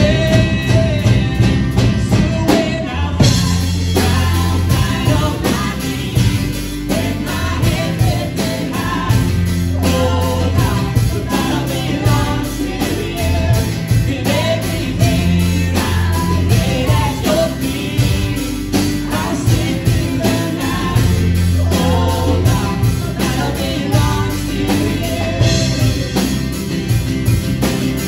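Live worship band playing a contemporary Christian song with a steady beat: acoustic guitar, bass, drums and keyboard under sung vocals.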